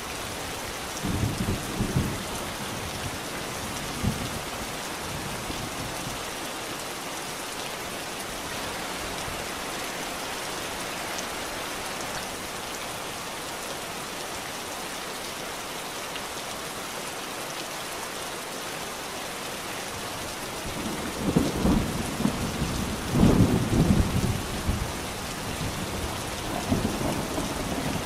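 Steady, heavy rain hissing, with rolling thunder: short low rumbles in the first few seconds and a louder, longer rumble late on that dies away in a smaller roll near the end.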